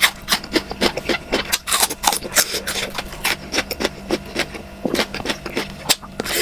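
Close-miked mouth eating sounds: chewing with many sharp smacks and clicks coming irregularly, several a second, over a faint steady hum.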